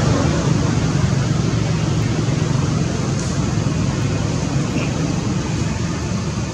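Steady low rumble with a hiss over it, unchanging throughout, like the noise of distant traffic or machinery.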